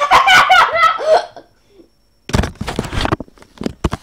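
A short burst of high-pitched wordless vocal noise from a boy in the first second or so, then about two seconds in a run of rustling and clicking handling noise close to the microphone.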